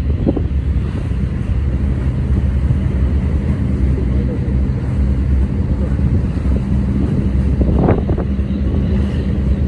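Diesel engines of squid-fishing boats running at a steady low drone as the fleet heads out of the harbour. A short higher sound rises briefly about eight seconds in.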